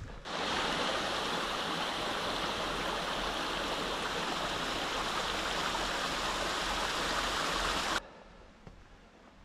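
Small rocky stream running and splashing down a stepped cascade of stones, a steady rush of water that starts just after the beginning and cuts off suddenly near the end.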